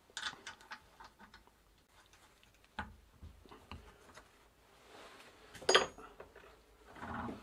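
Small metallic clicks and taps as a steel cotter pin is pushed into the cottered crank arm on the bottom bracket spindle and the parts are jiggled into line. There is a cluster of light clicks at first, a duller knock near three seconds in and one sharp, louder click a little after five seconds in.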